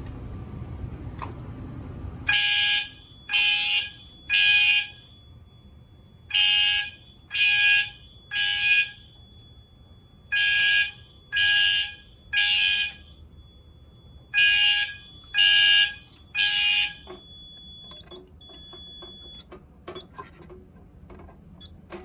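Fire alarm horn sounding the temporal-three evacuation pattern: three short blasts, a pause, repeated four times, then it stops. A steady low hum cuts out just as the horn begins, and a faint high tone and a few clicks follow it.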